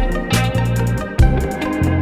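Background music: guitar over a bass line with a steady drum beat.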